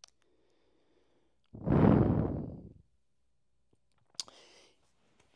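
A man's heavy sigh, one long breath out that starts suddenly about one and a half seconds in and fades over about a second. Near the end there is a small mouth click and a short, faint breath.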